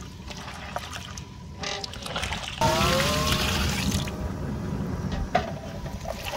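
Wooden spatula stirring chunks of mutton through freshly added water in a large metal cooking pot, with the liquid sloshing and swirling.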